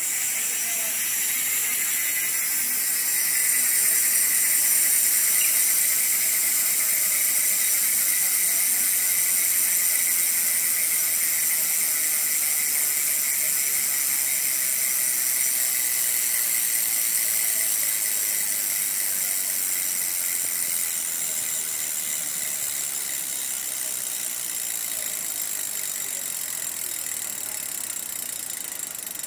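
Mavic Deemax Ultimate rear hub's freehub buzzing as the wheel spins freely: its pawls click too fast to pick apart, making one continuous high buzz. The buzz starts suddenly and slowly fades over the rest of the time.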